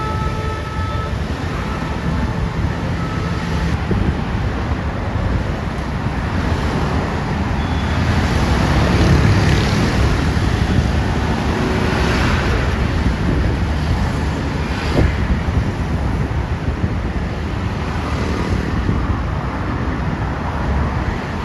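Road traffic going past at the roadside: heavy engine rumble and tyre noise, swelling as vehicles pass about 8 to 13 seconds in. The last of a horn note fades at the very start.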